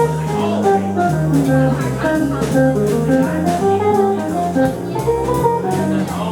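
Jazz quartet playing a swing tune: a plucked melody line over low notes that change about twice a second, with light cymbal strokes.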